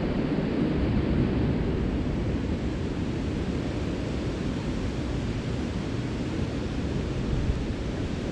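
Strong wind blowing across the microphone, a steady low rumble, over choppy water.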